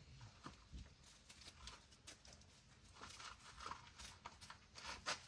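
Faint, scattered scuffs and light clicks of dogs' paws moving about on dirt and gravel, a little busier in the second half.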